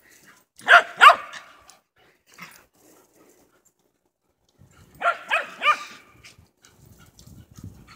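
Dog barking during a game of chase: two sharp barks about a second in, a faint one shortly after, then three quick barks around five seconds in.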